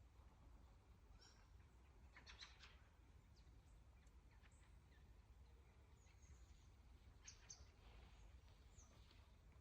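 Faint bird calls in a winter forest: short, high chirps come a few at a time every second or two, over a low steady hum.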